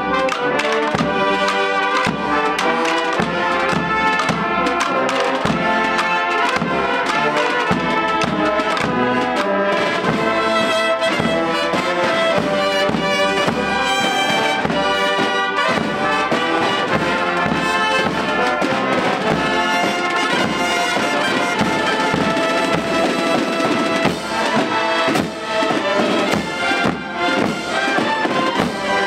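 Marching band of trumpets, a sousaphone and a line of bass drums playing a piece in the street, the drums beating a steady rhythm under the brass.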